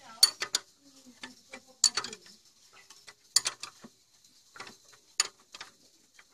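Irregular sharp clicks and light knocks from the metal tiller blades of a tractor rotavator being gripped and moved by hand, mixed with close handling noise.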